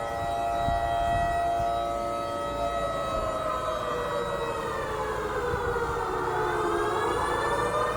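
Civil-defence warning siren wailing, one pitched tone with many overtones that slowly sinks in pitch and climbs back near the end. It is the nightly 10pm lockdown curfew siren.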